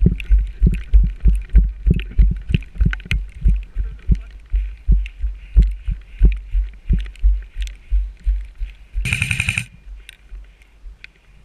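Running footsteps on a wet dirt road, heavy low thuds about two and a half a second that soften near the end. About nine seconds in there is a brief loud buzzing burst lasting under a second.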